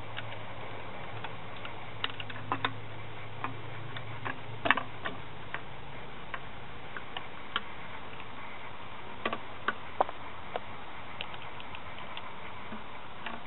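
Scattered light clicks and taps, a few at a time at irregular intervals, of a wire hook and small tool working in the plastic fuel tank opening of a Stihl MS462 chainsaw while fishing out the fuel pickup filter.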